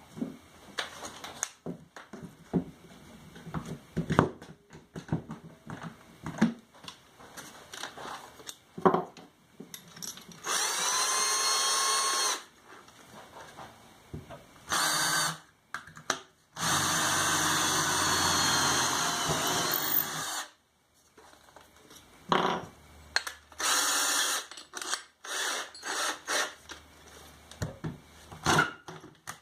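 Hand-held electric drill cutting hardwood plugs, running in several bursts, the longest about four seconds, with a steady whine that falls as the drill runs down. Knocks and clatter of wood and tool handling come between the runs.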